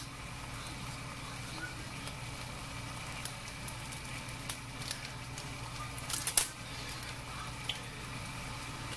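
Chicken fried rice crackling quietly in a skillet, with scattered small pops and a louder cluster of clicks about six seconds in, over a steady low hum.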